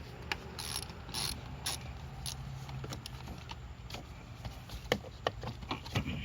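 Hand ratchet with a socket clicking in short irregular spurts as screws are backed out of an engine cover.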